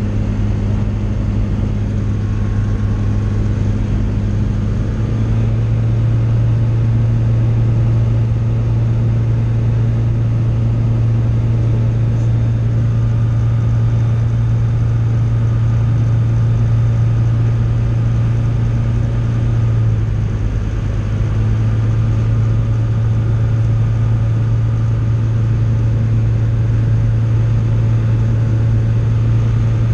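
Tecnam light aircraft's piston engine and propeller droning steadily, heard from inside the cockpit. The drone rises a little in pitch and loudness about five seconds in, then dips briefly around twenty seconds before steadying again.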